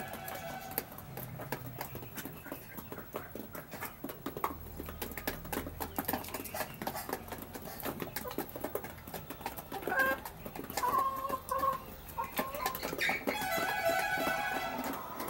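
Half-grown chickens pecking feed from hard ground, a rapid, irregular patter of beak taps. Short clucking calls come in about ten seconds in, and a longer call follows near the end.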